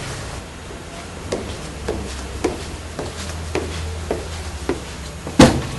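Footsteps on a hard floor, about two a second, then a single loud bang near the end.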